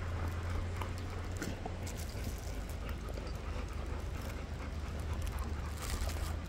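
Golden retrievers crowding close and eating from a hand, with scattered small clicks of mouths and chewing. A plastic bag rustles about six seconds in, over a steady low hum.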